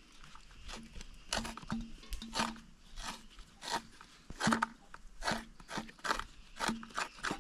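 Coconut meat being grated: a coconut half dragged repeatedly across a coconut grater, giving rhythmic scraping strokes roughly one every half second to second.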